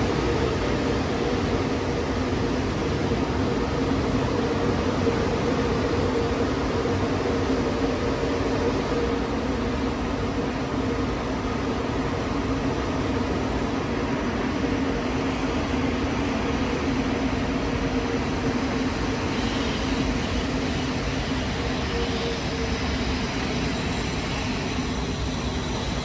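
Steady mechanical drone from an automatic car wash tunnel's equipment: a continuous hum with a low steady tone underneath, hardly changing.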